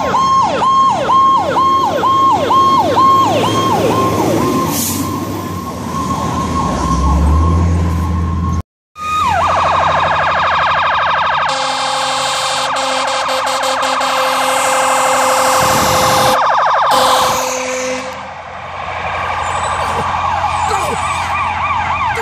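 Fire truck sirens on an emergency response: a fast repeating yelp of falling sweeps, then, after a sudden cut, a denser siren with a long steady horn-like tone and yelping sweeps again near the end as a ladder truck passes close by.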